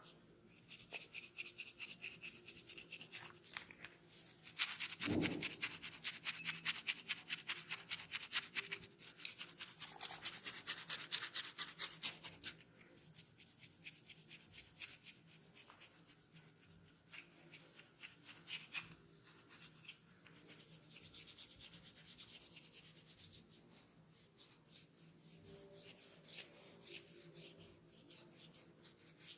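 Rapid, rhythmic scratching through hair on a dry, dandruffy scalp, several strokes a second, in runs that are softer in the second half.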